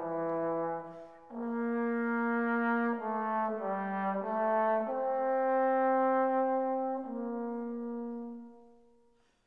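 Background music of slow, sustained held notes that change every second or two, fading out near the end.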